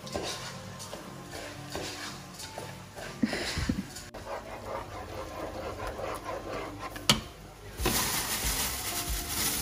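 Small Pomeranian dogs panting softly, with a couple of light clicks. Near the end a louder hissing noise comes in.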